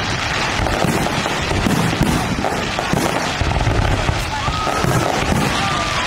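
Fireworks display: a dense, continuous barrage of bangs and crackling from many shells bursting in quick succession.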